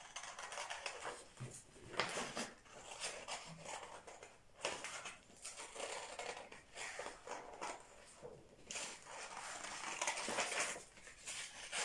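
Scissors cutting slowly through a sheet of drawing paper: a run of short snips with the paper rustling as it is turned.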